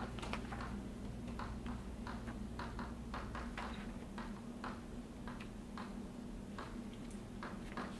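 Irregular taps and short scratches of a writing instrument writing out equations, two or three a second, over a steady low room hum.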